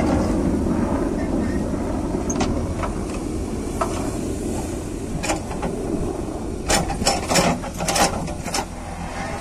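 JCB 3DX backhoe loader's diesel engine running steadily as the backhoe arm works, with scattered metallic knocks. A quick cluster of louder clanks and scrapes comes near the end as the bucket digs into the soil.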